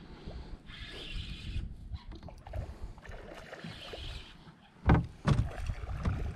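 A spinning reel whirring in short spells of about a second, as line is worked against a hooked redfish on a bent rod. Low water and wind rumble underneath, and a sharp loud knock a little before the end.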